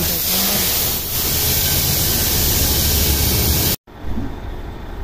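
A loud steady hiss over a low hum, dipping briefly about a second in and cutting off suddenly near the end.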